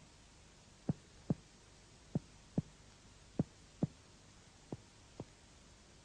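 Finger-on-finger chest percussion: short dull knocks struck in pairs, about one pair a second, the last pair softer. The examiner is tapping along the third and fourth intercostal spaces beside the breastbone to map the borders of relative cardiac dullness.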